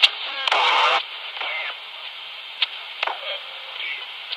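Magnum 1012 handheld 11-metre transceiver's speaker giving out band hiss and faint, garbled snatches of voices while it is tuned across the band. There is a loud half-second burst of noise about half a second in, and a few sharp clicks.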